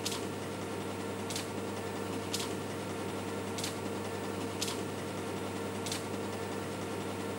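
UNIVAC 9300 computer installation running a FORTRAN compile: a steady machine hum with a short sharp click roughly once a second, as the magnetic tape unit works its reel.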